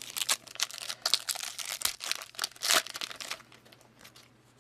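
A foil trading card pack wrapper being torn open and crinkled for about three seconds, then a few faint ticks as the cards are slid out.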